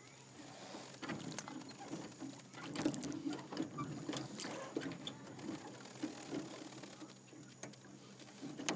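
Scattered light knocks and splashes from an oar being worked in a small aluminium rowboat.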